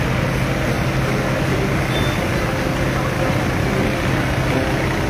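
Fire engine pump running steadily with a constant low hum, under the rushing hiss of a fire hose being used to fight the fire.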